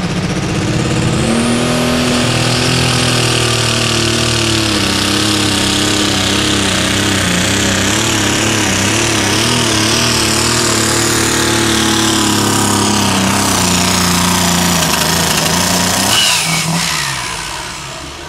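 Super stock pulling tractor's engine at full power, pulling a weight-transfer sled down the track: a loud, steady run with a high whine above it. About sixteen seconds in, the engine drops off and its pitch falls away as the pull ends.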